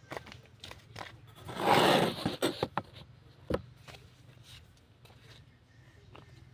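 Handling noise from a phone being moved on a tree log: a loud scraping rustle about two seconds in, with scattered clicks and knocks, one sharp knock shortly after.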